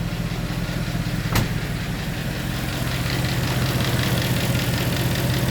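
Car engine idling steadily with the air-conditioning running and its compressor engaged. One sharp click sounds about a second and a half in.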